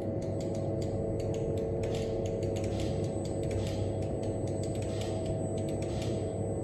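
Laser panel-repair machine at work: a steady hum with quick, irregular clicks, several a second, while it cuts a short circuit on an LCD panel's GOA circuit.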